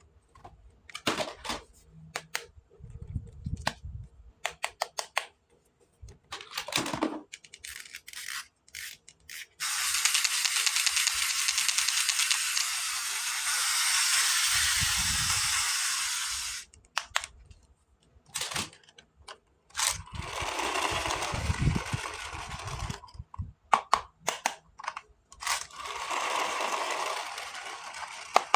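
Hands handling plastic toy pieces and packaging: many sharp clicks and taps, with a long steady rustling or scraping hiss partway through and two shorter ones later.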